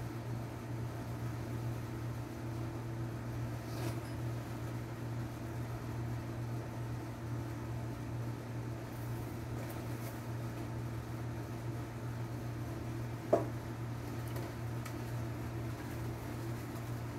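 A steady low mechanical hum with a few faint ticks, and one brief sharp squeak about 13 seconds in.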